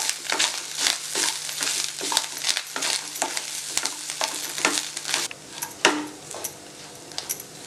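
Spatula scraping and stirring onion and coconut pieces as they fry in a little oil in a non-stick kadhai, over a light sizzle. The strokes come quickly, about three a second, and grow sparser over the last two seconds. This is the low-flame roasting of the masala until it is browned.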